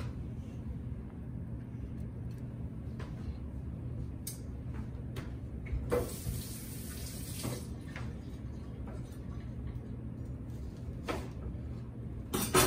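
Kitchen handling sounds over a steady low hum: a few light knocks and clunks as citrus slices are tucked around a chicken in a cast iron skillet, with a short hiss about six seconds in.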